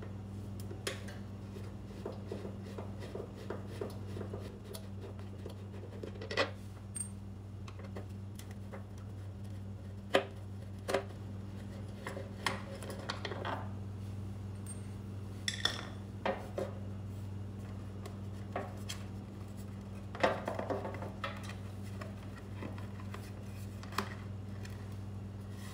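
Scattered sharp clicks, knocks and rattles of plastic and metal parts being handled as a black plastic cover is worked loose and lifted off a generator's control panel, over a steady low hum.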